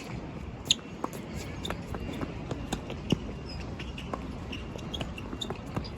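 Scattered light taps and scuffs of play on a tennis court, tennis ball bounces and footsteps, over a steady low wind rumble on the microphone.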